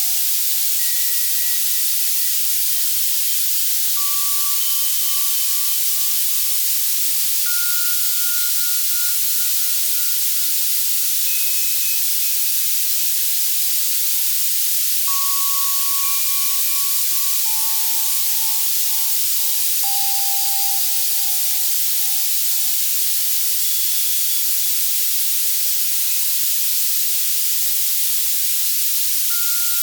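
Access Virus C synthesizer playing steady white noise, brightest in the highs, with single bell tones at scattered pitches, one every two to four seconds, each fading away after a second or two.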